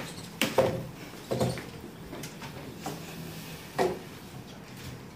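Two plastic-seated chairs with metal legs being moved and set down on a hard classroom floor: a series of separate knocks and clatters, the loudest about half a second in and another near four seconds.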